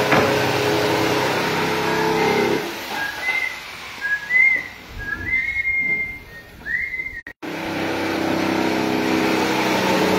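Table saw running with a steady motor hum as a plywood sheet is fed across the blade. For a few seconds in the middle the saw noise drops away and short, high whistle-like chirps are heard. The hum cuts out completely for an instant and comes back.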